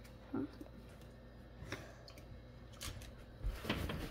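A dog lapping water from a bowl: faint, irregular wet clicks, with a short low sound about half a second in. Near the end there is a louder cluster of clicks as the dog steps off across a hardwood floor.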